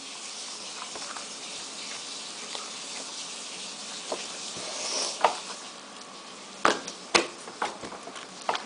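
Slime being kneaded by hand with pom-poms mixed in: soft wet squishing with a few sharp sticky pops and clicks, the strongest in the second half.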